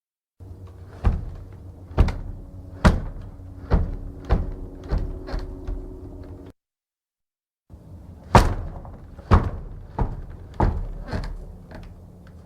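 Heavy wooden church door knocking and banging against its frame, a run of sharp knocks about once a second that come quicker and softer, with a steady pitched creak under the first run. After a brief dead-silent gap a second run of knocks starts with the loudest bang and again quickens and fades.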